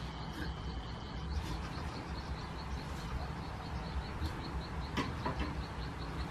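A knife tapping on a wooden chopping board as vegetables are cut, with two sharper chops about five seconds in. Under it a steady low hum and a rapid, regular high chirping about four times a second.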